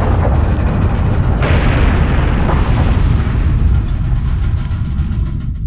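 Loud, deep earthquake rumble sound effect with a noisy roar layered over it. The roar grows harsher about one and a half seconds in and thins toward the end.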